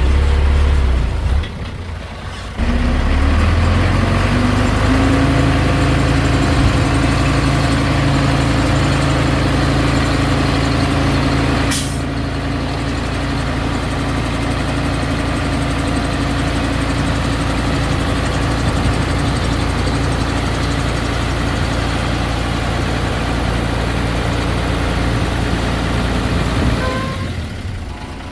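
Diesel engine of heavy earth-moving machinery running steadily. It drops off briefly about two seconds in, then picks up again and rises a little in pitch. A single sharp click about twelve seconds in.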